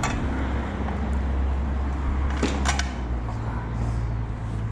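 Steady low hum in the background, with two or three quick clicks of small hardware being handled a little past halfway through.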